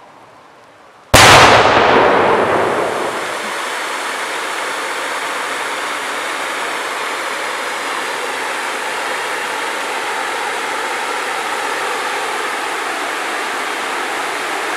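Fireworks fountains (Swiss 'volcanoes') lighting with a sudden loud burst about a second in, then spraying sparks with a steady hiss.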